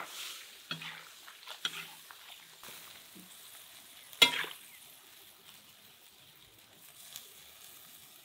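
Beef heart strips and potato cubes sizzling in a cast-iron cauldron while a metal spatula stirs them, scraping against the pot a few times; the loudest scrape is about four seconds in, after which only the sizzle goes on.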